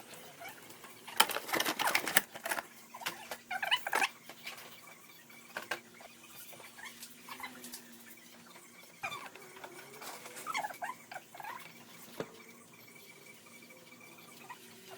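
Clicks, knocks and scraping of parts being handled as a TV screen panel is refitted, with a burst of clattering early on and a few short squeaks, over a faint steady low hum.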